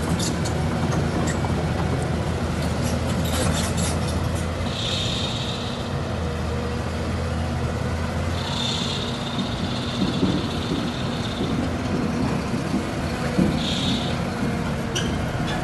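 Heavy diesel machinery running steadily, with short hissing bursts about five seconds in, a longer one from about eight to eleven seconds, and another near the end.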